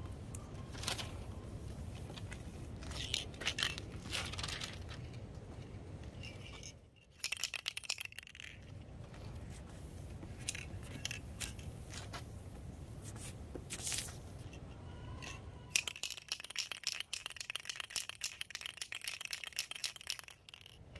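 Irregular scraping and rustling strokes by hand, with a run of quick, rapid strokes near the end.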